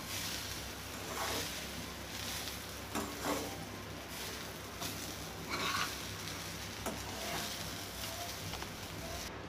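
Spoon stirring and scraping cooked rice and grated carrot around a metal pan, in short irregular strokes over a low steady hum.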